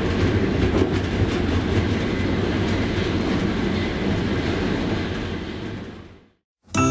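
Running noise of a moving passenger train carriage heard from inside its rear vestibule: a steady rumble of wheels on the rails with scattered clicks. It fades out about five seconds in, and music begins right at the end.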